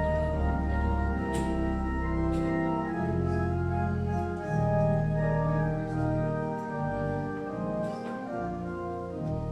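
Church organ playing slow, sustained chords over held bass notes, the chords changing every second or so.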